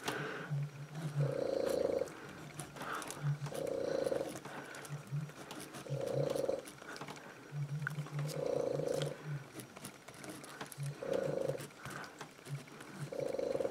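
A resting pet breathing noisily in a slow, even rhythm, about one breath cycle every two and a half seconds. Faint scratches of a pen writing on paper come in between.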